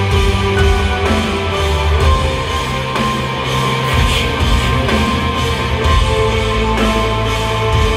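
Live rock band playing loudly, with electric guitars over bass and drums, heard from the audience in a concert hall.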